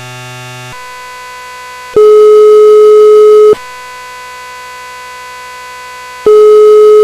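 Telephone ringback tone as a call is placed: two loud, long, steady beeps of about a second and a half each, roughly four seconds apart, over a fainter steady tone on the line, after a short chord of tones at the start.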